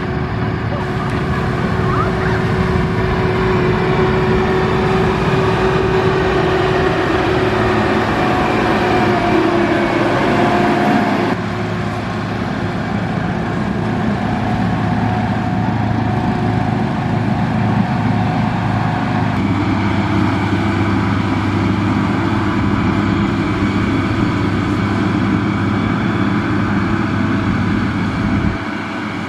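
Diesel engine of heavy road-building machinery running steadily under load. Its pitch and tone change abruptly about eleven seconds in and again near twenty seconds.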